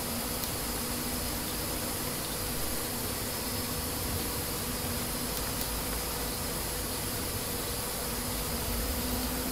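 Steady hiss with a faint low electrical hum, the background noise of an open microphone at a computer, with a couple of faint clicks.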